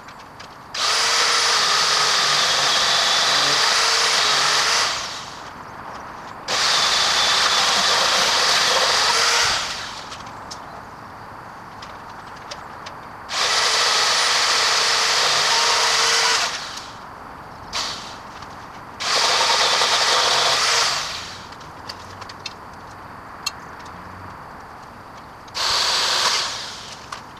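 MacAllister MPS750S-2 electric pole saw with a 20 cm Oregon bar and chain, run in five bursts of a few seconds each while cutting oak branches. Each burst starts sharply as a steady high whine and winds down as the trigger is released, with the last burst short and near the end.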